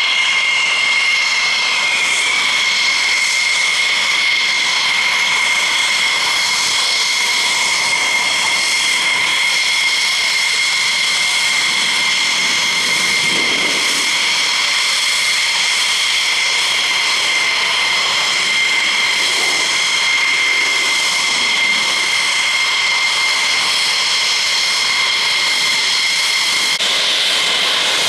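Polish Air Force two-seat F-16D's Pratt & Whitney F100 turbofan running at taxi power: a loud, steady high whine over a rushing noise. The whine eases slightly lower in pitch in the first couple of seconds, then holds.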